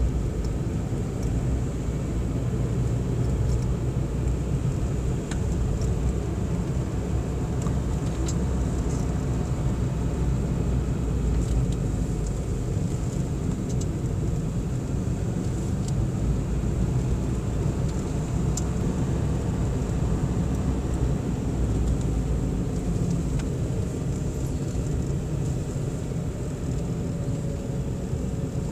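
Car running steadily on the road, heard from inside the cabin: a constant low rumble of engine and tyres, with a faint engine tone that shifts slightly in pitch near the end.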